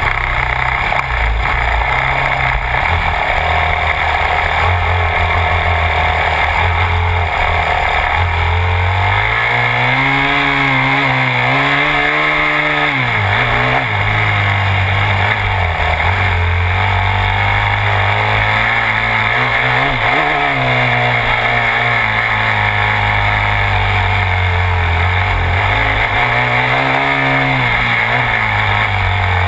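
Yamaha YZ250F dirt bike's 250 cc four-stroke single-cylinder engine heard from a camera mounted on the bike, its pitch rising and falling repeatedly as the throttle is worked, with a sharp dip about 13 seconds in. A constant rushing noise runs under it.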